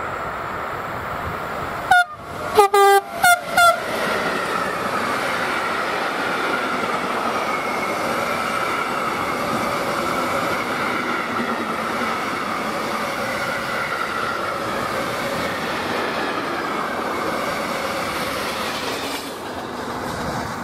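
The electric locomotive of a freight train sounds its horn in a quick series of short, loud blasts about two seconds in, a greeting toot to the trackside filmer. Then the train of tank wagons rolls past with a steady rumble and rattle of wheels on rail, which drops away near the end as the last wagon goes by.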